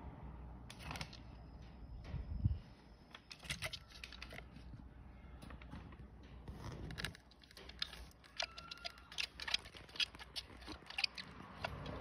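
Irregular clicks, taps and scrapes of a clear plastic container and glass dish being handled as a horned frog is moved into the container, with a louder thump about two and a half seconds in.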